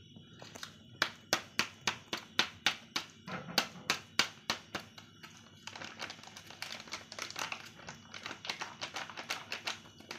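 A cat crunching dry kibble from a plastic plate: sharp, regular crunches about three a second, turning into faster, denser crunching and rattling in the second half.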